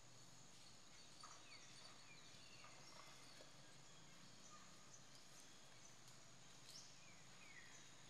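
Near silence: faint outdoor ambience with a steady high-pitched hiss and a handful of short, falling chirps scattered throughout.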